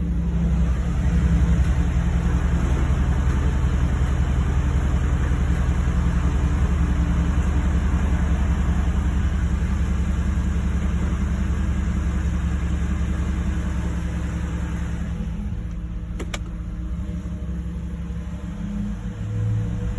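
Ford Coyote 5.0 V8 engine running with a steady noise that the owner suspects may be a bad bearing. About fifteen seconds in the harsher upper part of the sound fades, leaving a lower running sound, and a single sharp click follows a second later.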